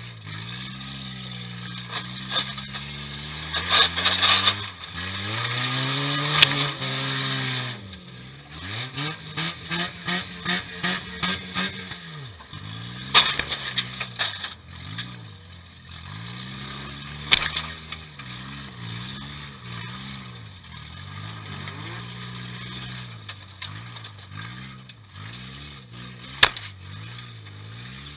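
Demolition derby car's engine revving up and falling off over and over as it drives, heard from inside the stripped-out cab. Several sharp bangs of impacts cut through, the loudest about six seconds in and another near the end.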